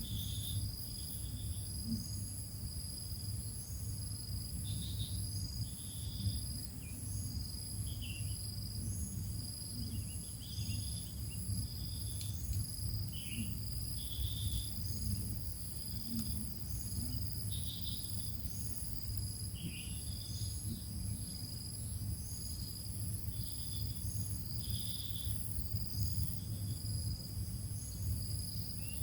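A steady high-pitched insect trill, with short chirps about every second over a constant low hum.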